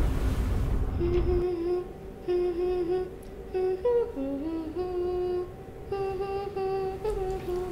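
Low road rumble from a car driving, giving way about a second and a half in to a single voice humming a slow melody in short held phrases with brief pauses.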